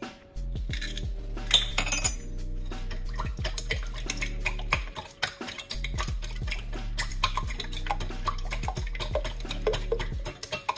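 A knife blade tapping an egg shell open about two seconds in, then eggs beaten by hand in a glass mixing bowl, the metal utensil clinking quickly and repeatedly against the glass.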